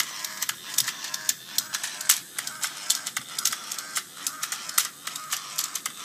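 Small motors of a homemade walking robot whirring, with rapid, irregular clicking and clattering of its plastic parts as it moves.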